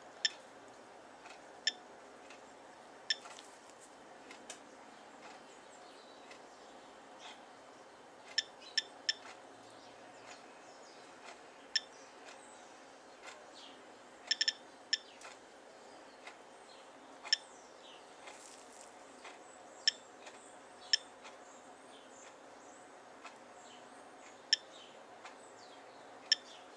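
SOEKS radiation counter clicking once per detected count at a normal background level of about 0.18–0.19 µSv/h. The clicks are sharp and come at random intervals, about seventeen of them, sometimes two or three in quick succession.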